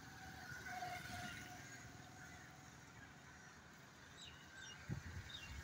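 Faint outdoor ambience of distant road traffic: a low steady rumble with a brief engine hum in the first couple of seconds, and a few short bird chirps about four seconds in.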